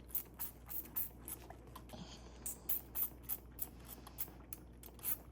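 Newborn goat kid suckling milk from a bottle nipple: faint, quick wet clicks at about three a second.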